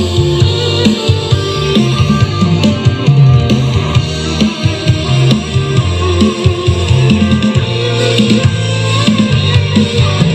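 A song with drums, guitar and a heavy bass line played loud through a red Bluetooth speaker cabinet with an 8-inch subwoofer, a 6.5-inch midrange and two 4-inch tweeters, driven by a small 900 W Bluetooth amplifier board. The board's controls are turned up to maximum for the sound test.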